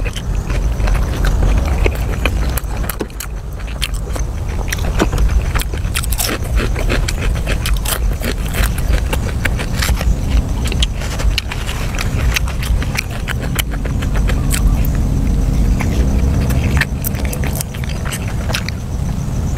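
Close-up chewing and crunching of food, with many short sharp crackles over a steady low rumble.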